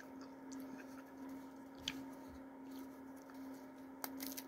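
Faint clicks and small handling noises over a steady low hum, with a slightly louder click about two seconds in and another near the end.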